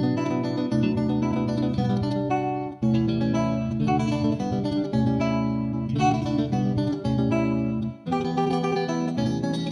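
Background music: plucked acoustic guitar, with brief breaks about 3 and 8 seconds in.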